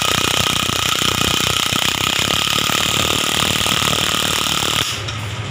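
Impact wrench hammering steadily on the top nut of a coil-spring strut, driving the strut mount onto the shock absorber's piston rod during reassembly. It runs as one continuous rapid rattle and cuts off about five seconds in.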